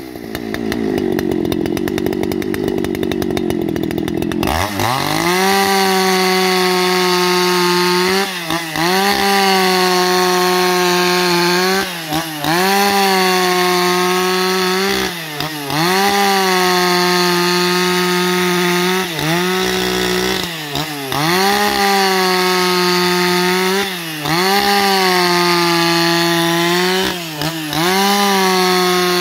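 Husqvarna 281XP two-stroke chainsaw ripping lengthwise along a log to saw planks. Its engine runs slower for the first four seconds or so, then revs up to a steady full-throttle note that dips briefly about every three or four seconds.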